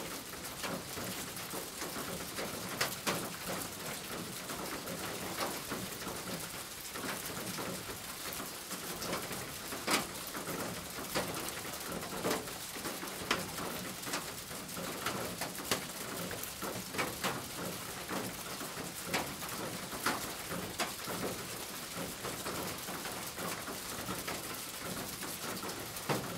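Graphite pencil scratching on paper in short, irregular strokes, with frequent sharp little ticks as the lead meets the sheet.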